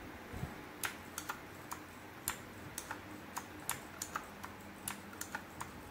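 Typing on an RK61 mechanical keyboard with clicky blue switches: irregular single keystrokes, a few sharp clicks a second.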